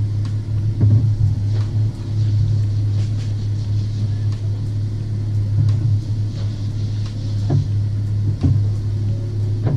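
BMW 4 Series engine idling with a steady low drone, heard from inside the cabin, with a few soft knocks.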